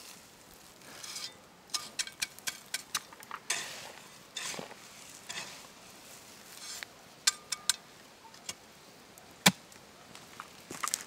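A shovel scooping loose earth and tossing it onto a mound over a pit oven. Soil and pine needles land in short hissing rushes with sharp ticks of the blade and grit; a single sharp click about nine and a half seconds in is the loudest.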